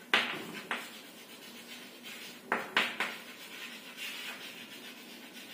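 Chalk writing on a chalkboard: sharp taps as the chalk strikes the board, the loudest just after the start and three close together a little past halfway, with scratchy strokes between them.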